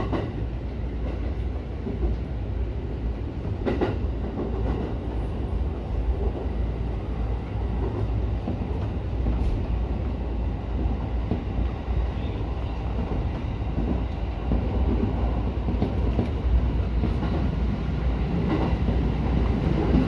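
JR E231-series electric train running along the track, heard from the driver's cab: a steady low rumble of wheels on rail, with a sharp knock about four seconds in. It gets slightly louder toward the end.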